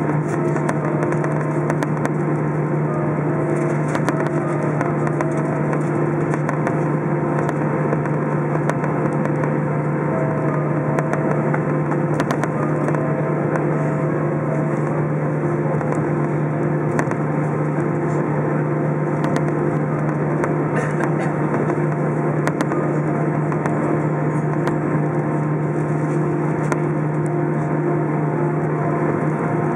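Steady cabin noise of an Airbus A319 taxiing with its jet engines at idle. A strong low hum sits under a rushing noise, with a few fainter steady tones above it.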